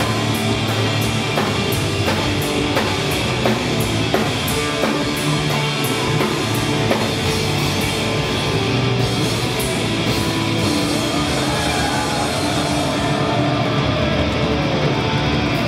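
A punk rock band playing live, loud: distorted guitars, bass and a drum kit with regular cymbal hits. The cymbals drop out about thirteen seconds in, then come back near the end.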